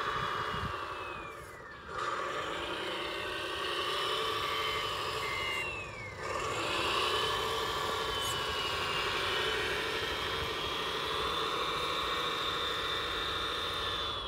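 Small electric motor of an RC model 6x6 truck whining. It winds down and slows about two seconds in, speeds up again around six seconds, and runs steadily until it winds down near the end.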